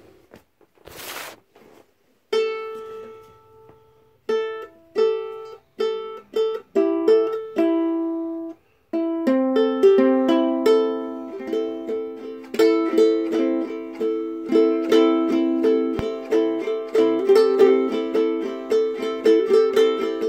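Ukulele being played: single plucked chords ring out one at a time with short gaps, then from about nine seconds in a quick, continuous run of strummed and picked notes. A brief rustle comes about a second in, before the playing starts.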